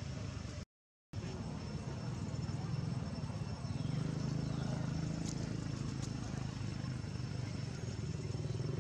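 Outdoor background noise dominated by a steady low motor hum, which gets louder about three and a half seconds in. The sound cuts out completely for about half a second near the start.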